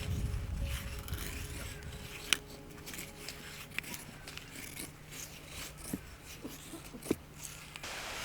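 Knife blade shaving thin curls off a wooden stick to make a feather stick: short uneven scrapes along the wood, with a couple of sharp clicks.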